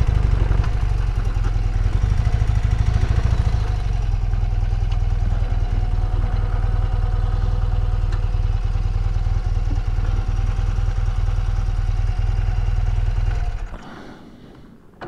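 1982 BMW R100RS's air-cooled flat-twin boxer engine running steadily. It drops away sharply near the end.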